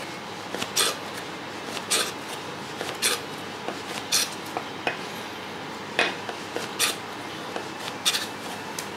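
Long knife slicing wagyu togarashi (beef shoulder cut) into yakiniku slices on a plastic cutting board. The blade taps the board sharply at the end of each cut, about once a second, with a light scrape of the blade drawing through the meat between taps.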